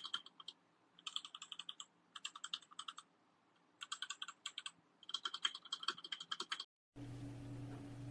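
Typing on a Royal Kludge RK R87 mechanical keyboard: five quick bursts of keystroke clicks with short pauses between them. Just before the end the typing stops and gives way to a steady low hum.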